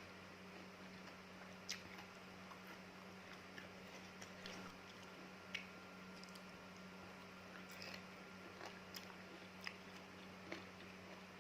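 Close-miked chewing of fresh fruit pieces coated in sticky palm-sugar chili sauce: faint crisp bites and wet mouth clicks about once a second, over a low steady hum.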